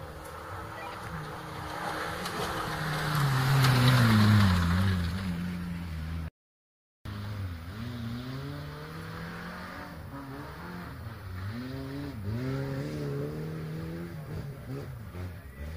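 Off-road 4x4 vehicle's engine revving. It is loudest about four seconds in, where its pitch glides down. After a break of under a second, the revs rise and fall over and over.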